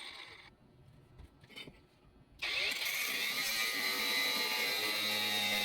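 Cordless angle grinder winding down and going quiet, then starting up again sharply about two and a half seconds in and running with a steady high whine.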